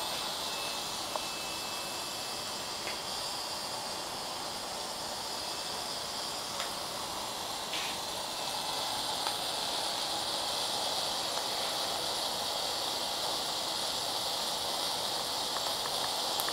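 Homemade 12-volt smoke generator running with a steady hiss as it puts out smoke, with a few faint clicks here and there.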